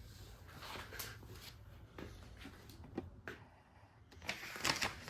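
Handling noises from putting together an angle-grinder cutting stand: scattered clicks, knocks and rustles of parts being moved and fitted, busiest about four and a half seconds in.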